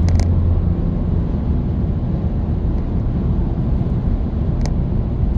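Road and engine noise inside a car cruising on an expressway: a steady low rumble, with a deeper hum in the first second.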